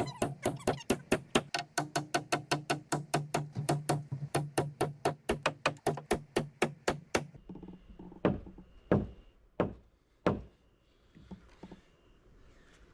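A power driver runs with a rapid, even knocking, about five knocks a second over a steady hum, as a fastener is driven into the timber beam, stopping about seven seconds in. Then come four heavy single blows, like a hammer striking the framing, a little under a second apart.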